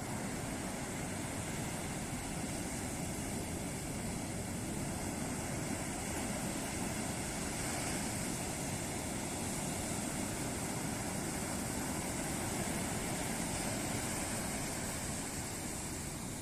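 Ocean surf: waves breaking and washing on a beach in a continuous rush that swells a little near the end.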